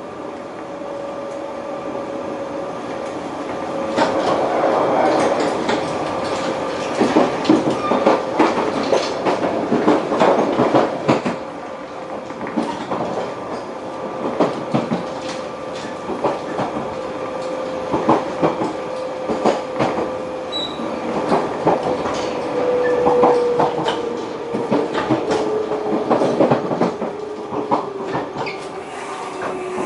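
Inside a JR Shikoku 8000 series electric express train running in to its terminal stop. The wheels clatter and knock irregularly over rail joints and points, thickest from about four seconds in, under a steady whine that slowly drops in pitch as the train slows.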